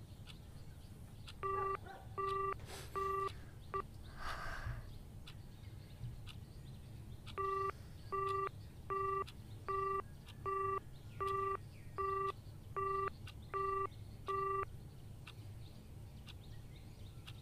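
Mobile phone keypad tones as a number is dialled: three short beeps, a pause, then about ten more identical beeps at an even pace, a little under a second apart.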